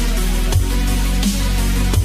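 Electronic dance music with a deep, steady bass line and drum hits.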